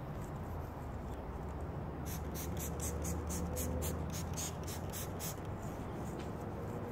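A trigger spray bottle of clay-bar lubricant squirted about a dozen times in quick succession, about four short hisses a second, starting about two seconds in. A steady low hum runs underneath.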